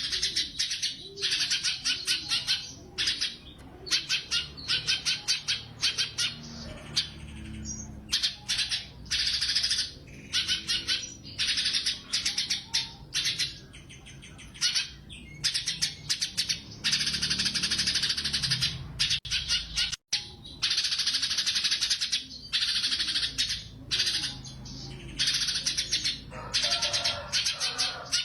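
Cucak cungkok songbird singing prolifically. It sings long phrases of rapid, shot-like repeated notes, broken by short pauses.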